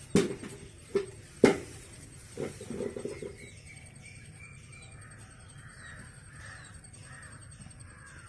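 Crows cawing, a regular run of short caws about two a second through the second half. A few sharp knocks come in the first second and a half.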